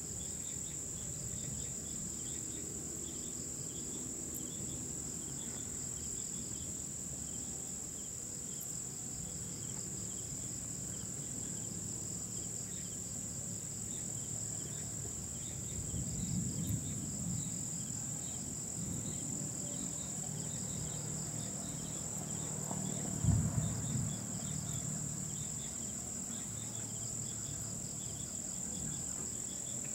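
Night insects: a steady high drone with rhythmic cricket-like chirping above it. Twice, a little past the middle and more loudly about three-quarters through, low rumbles of distant thunder.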